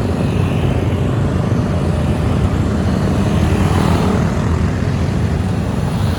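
Steady low rumble of a bus's engine and road noise while it is driving, with no horn or other distinct event standing out.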